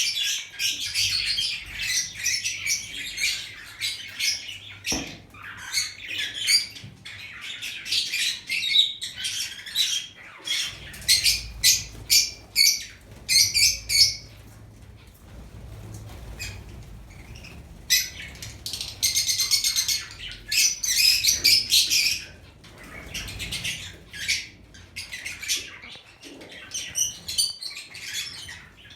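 Lovebirds calling, many quick high chirps in dense bunches, with a quieter stretch about halfway through.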